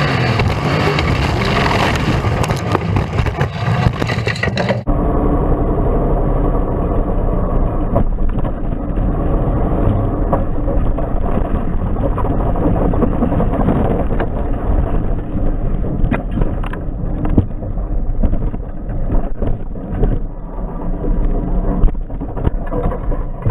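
Racesaver sprint car V8 engine running loud and hard under racing. About five seconds in the sound abruptly turns duller, as from a switch to another recording, with scattered knocks and jolts through the rest.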